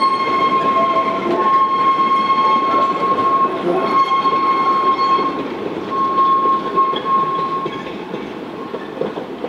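Narrow-gauge train's coach and goods wagons rolling over curved track and pointwork, wheels rumbling with a steady high-pitched flange squeal that breaks off now and then and stops about eight seconds in. The rumble fades away near the end as the last wagon clears.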